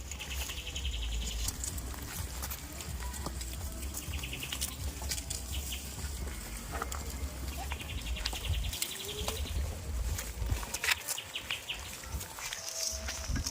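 Farm goats bleating now and then, over a steady low rumble, with several short runs of rapid high chirping.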